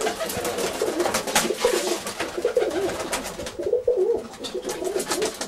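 Several Tippler pigeons cooing, their warbling coos overlapping one after another, with scattered sharp clicks and a flutter of wings.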